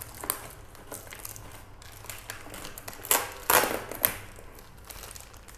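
Plastic label pouch and packing tape being scraped, cut and peeled off a cardboard shipping box with a small blade: scratching and crinkling, with a few short, louder rasps about three to four seconds in.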